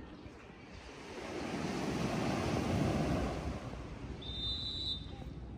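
Surf washing onto a sandy beach, swelling and then easing, followed about four seconds in by one long, high blast on a security guard's whistle, a warning to leave the closed beach.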